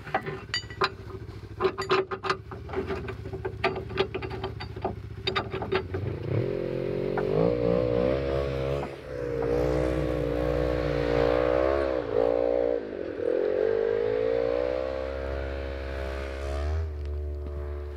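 Metal clinking as a recovery strap is fastened at the Jeep's rear hitch, then the Jeep's engine runs with its pitch rising and falling as it is driven forward to pull the strap out.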